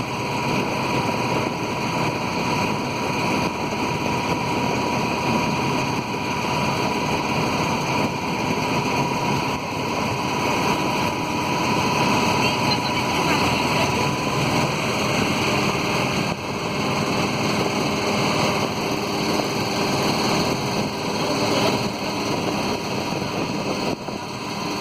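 Motorboat engine running steadily, with wind and water noise, and a thin steady whine that fades out about halfway through.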